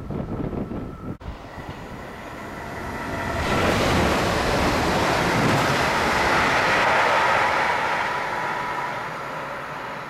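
A DSB passenger multiple-unit train passing at speed under the bridge: a rushing rumble that builds, is loudest in the middle and fades as the train runs away. Wind buffets the microphone in the first second or so.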